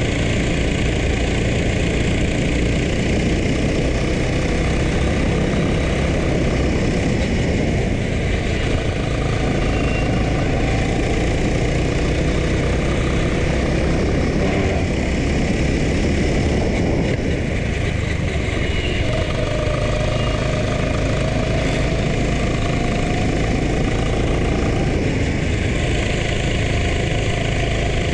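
Racing kart's engine running at speed, heard onboard the kart, a steady loud drone through the laps with its pitch shifting as the kart goes through the corners.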